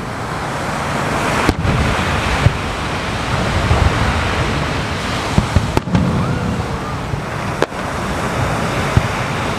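Aerial fireworks shells bursting, a handful of scattered sharp bangs, over a steady loud wash of waves breaking on the shore.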